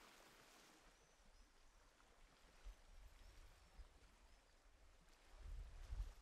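Near silence: faint outdoor ambience with a soft hiss and a few tiny high chirps, and a low rumble that swells near the end.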